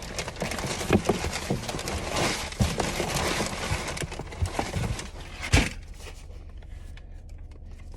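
A watch parcel being unwrapped by hand: rustling and crinkling packaging with many small clicks and knocks, one sharp knock about five and a half seconds in, after which it goes quiet.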